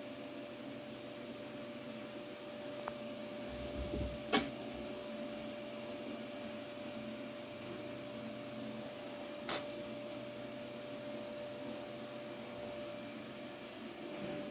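Steady hum of an appliance or fan in a quiet room, carrying one constant mid-pitched tone. A short low rumble and a sharp click come about four seconds in, and a second sharp click about five seconds later.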